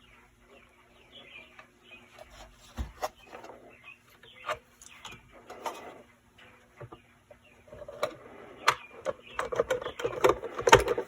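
The plastic cover being fitted back onto a Dictaphone tape player. Scattered clicks, knocks and small scrapes, busier near the end, over a faint steady hum.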